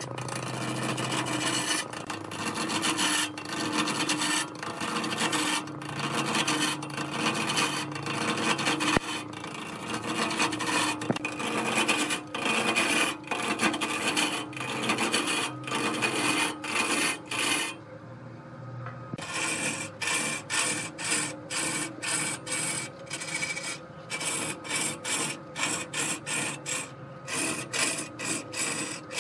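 Hand chisel cutting into a large log spinning on a wood lathe: a harsh rasping scrape that comes in rapid, even pulses, about two a second, over the steady tone of the lathe running. The scraping stops briefly about two-thirds through, then resumes.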